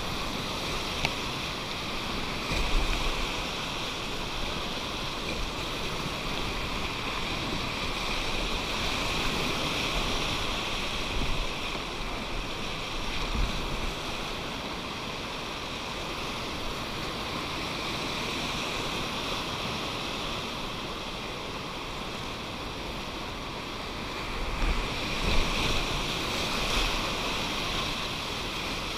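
River whitewater rushing steadily through rapids, a continuous hiss of moving water, with a few louder low bumps on the microphone.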